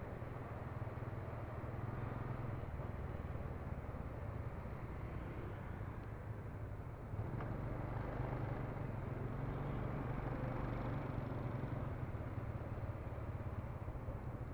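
Street traffic noise: motor vehicles running in a steady rumble, a little louder from about seven seconds in.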